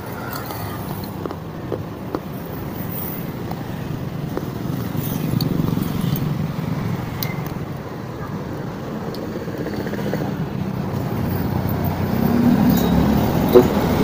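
Road traffic going by: a low rumble of passing vehicles that swells about five seconds in and again near the end. A few light clicks over it, with a sharper pair near the end.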